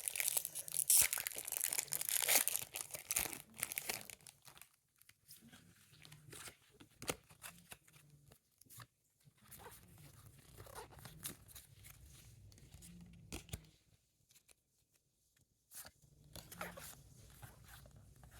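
Foil wrapper of a Pokémon card booster pack tearing and crinkling loudly for about four seconds, then quieter scattered ticks and rustles.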